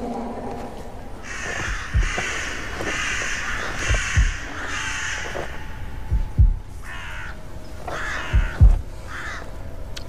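A crow cawing over and over, about five caws in a row and then a few more. Under it run deep double thumps like a slow heartbeat, one pair every two seconds or so, and these are the loudest sound.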